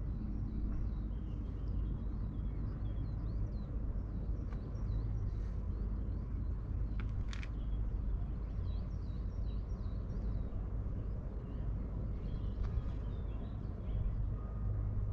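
Wind rumbling on the microphone with small birds chirping and singing throughout. A brief sharp click about seven seconds in.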